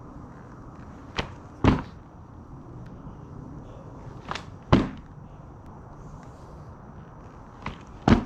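Practice skateboard deck knocking against cardboard on the ground during butters and spins: three pairs of sharp knocks about three seconds apart, the second of each pair louder.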